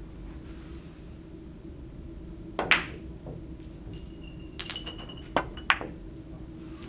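Billiard shot: one sharp click of the cue striking the ball a little under three seconds in, then about two seconds later a quick run of sharp clicks as the balls hit, with a faint ringing tone under them.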